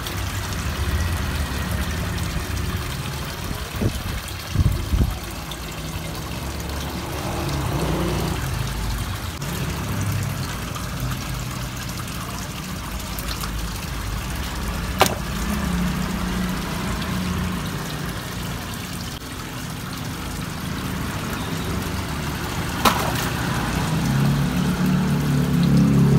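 Steady trickle of running water in a garden fish pond, with a few low thumps about four to five seconds in and two single sharp clicks, one midway and one near the end.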